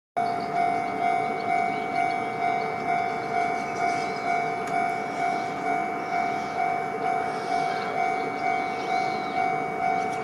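Japanese railway level crossing warning bell ringing, a steady tone pulsing about twice a second, the signal that a train is approaching.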